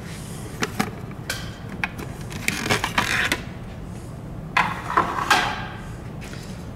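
Plastic cover of a Grammer MSG95 seat base being pulled off its metal frame after its rivets are drilled out: a scatter of sharp clicks and knocks, with two longer scraping stretches around the middle and about two-thirds in.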